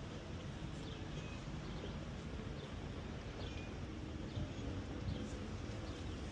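Outdoor background noise: a steady low rumble with a few faint, brief high chirps, likely birds.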